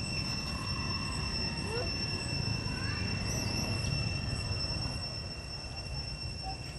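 Steady high-pitched insect drone over a low rumble of wind on the microphone, with a few faint short rising chirps about two to three seconds in.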